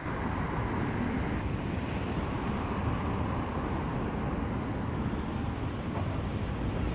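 Steady outdoor background noise: wind rushing on the microphone over a low, constant rumble.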